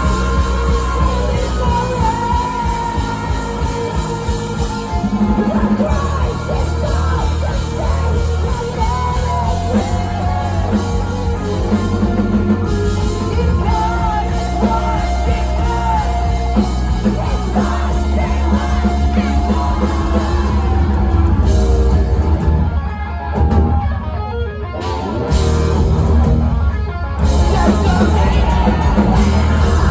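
Post-hardcore rock band playing live: distorted electric guitars, bass and drums with a singer's sung and yelled vocals, heard from the crowd. The band briefly drops back about 22 seconds in, then comes back in full.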